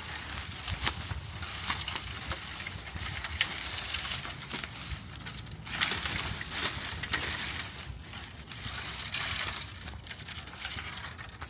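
Manual pole saw rasping through a tree branch, with twigs and leaves rustling and crackling.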